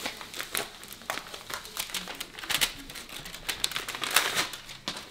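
A paper envelope being opened and the letter unfolded by hand: crinkling and tearing paper in a run of short rustles, loudest about four seconds in.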